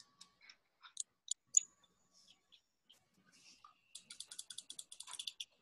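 Faint computer keyboard key clicks: a few single presses, then a quick run of about a dozen taps near the end.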